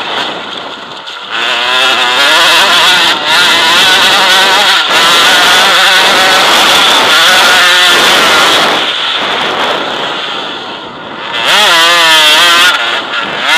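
KTM enduro motorcycle engine running hard under racing load, its pitch rising and falling with throttle and gear changes. It eases off from about nine seconds in, then revs up sharply once more and drops back near the end.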